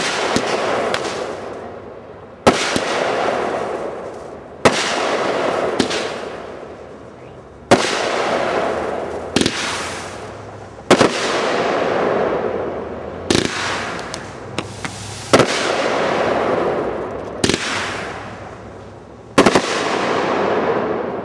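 A consumer fireworks cake firing its aerial shots, with a sharp bang about every two seconds, around ten in all. Each bang is followed by a noise that fades, and a few smaller pops fall in between.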